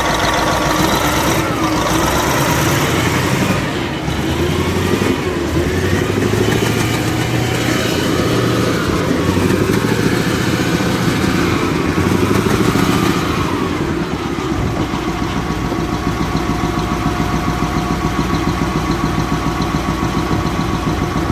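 Caterpillar 988F Series II wheel loader's V8 diesel engine running, its pitch shifting at raised speed and then settling to a steady, evenly pulsing idle about fourteen seconds in. It runs smoothly now that the cylinder 5 injector, lifted by a broken hold-down bolt, has been reseated with new seals.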